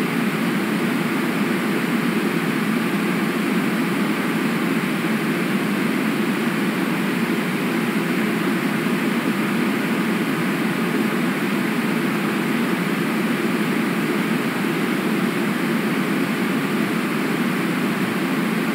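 Steady, even rushing noise of outdoor river-side ambience, with no rise or fall and no distinct events.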